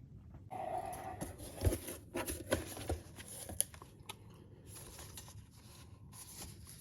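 Plastic packaging rustling and crinkling as items are rummaged through and handled, with small clicks and knocks, busiest in the first few seconds and then quieter.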